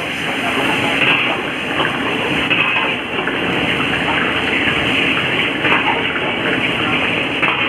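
Water swished and scooped around a large steel wok with a steel ladle as the wok is rinsed out, over a steady noisy rush.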